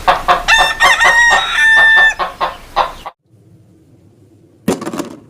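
A rooster clucking several times, then crowing with one long held note, stopping about three seconds in. A brief clatter follows near the end.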